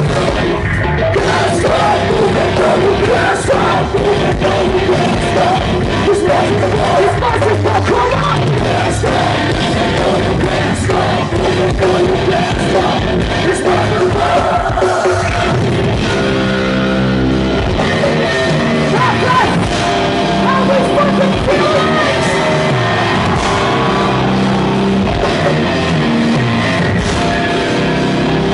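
Heavy metal band playing live through a festival stage PA: distorted electric guitar, bass and drums under shouted and sung female vocals.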